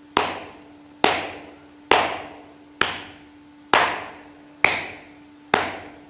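An open palm slapping the skin of the inner ankle, with the hand lifted and the wrist loose, in a slow, even rhythm of about one slap a second, seven in all. Each slap rings briefly in the room.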